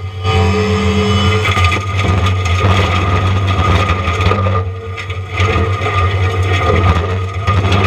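John Deere 333E compact track loader running hard while its Diamond Mower forestry mulching head grinds pine wood: a steady diesel drone under dense shredding noise and a steady high tone. The grinding eases briefly about five seconds in, then picks up again.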